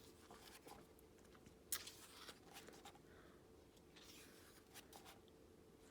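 Near silence: room tone with faint rustles of a book's paper pages being handled, and a soft tap a little under two seconds in.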